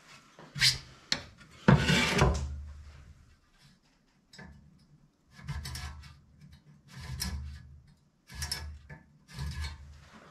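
Small hand tool scraping and rubbing across the fins of a classic Mini's copper-core radiator as the bent fins are straightened one by one. It comes as a run of short scrapes about a second apart, the longest and loudest about two seconds in.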